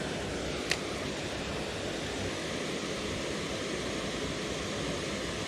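Steady rush of water pouring over a small dam spillway, with one sharp click under a second in.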